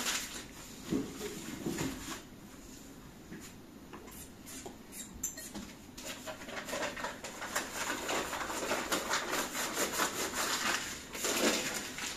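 Kitchenware being handled and wrapped for packing: rustling with small knocks and clicks, a few about a second in, then a busy run of them in the second half.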